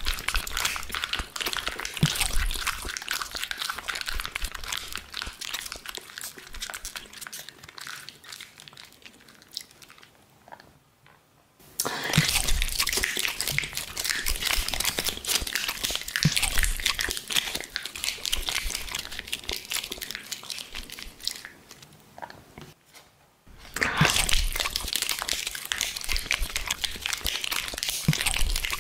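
Thin clear plastic food packaging crinkling and crackling close up as hands handle it, a dense run of crisp snaps. It stops twice, briefly, about ten and about twenty-two seconds in.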